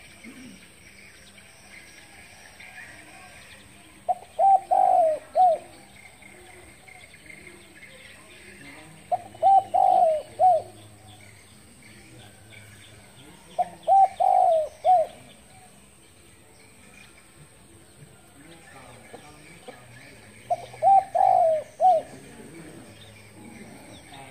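Spotted dove cooing: four phrases of several low, pitched coos, each about a second and a half long, coming every five or so seconds.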